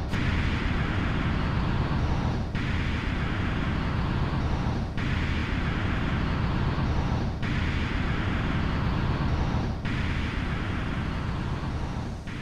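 Dense, noise-heavy soundtrack with a low rumble under a rushing hiss, breaking off briefly and evenly about every two and a half seconds.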